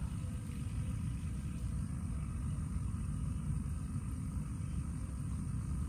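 Steady low rumble with a faint, thin high-pitched tone held steady above it.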